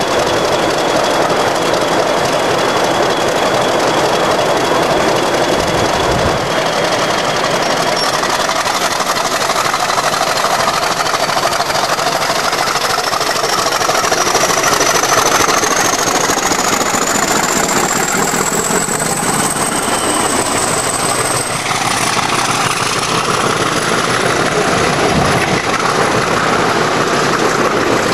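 Class 50 diesel locomotive's English Electric 16-cylinder engine running under power as it pulls its train away, with a thin high whine that holds steady, then climbs in pitch for about twelve seconds and stops about 21 seconds in.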